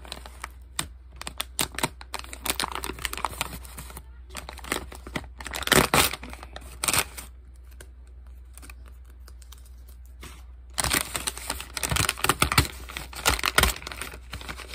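A paper packet being torn open and crinkled by hand, in irregular rustling bursts. There is a quieter pause of a few seconds past the middle, then dense crinkling starts up again.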